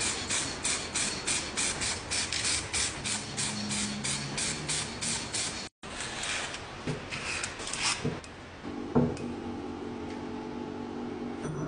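Rhythmic back-and-forth abrasive strokes, about three a second, like scraping, filing or brushing a part during restoration work; they stop at a sudden cut about halfway through. A steady low hum and a single knock follow.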